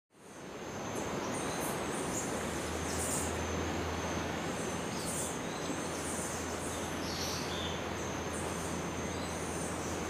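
Nature ambience: a steady rushing noise with short high bird chirps scattered through it and a thin steady high tone, fading in over the first second.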